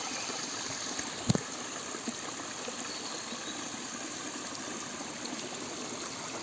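Small rocky forest stream running and trickling over stones in little cascades, a steady rush of water. One short knock about a second and a half in.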